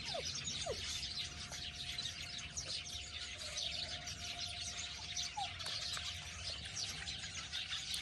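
A flock of sparrows chirping continuously, with many short high chirps overlapping.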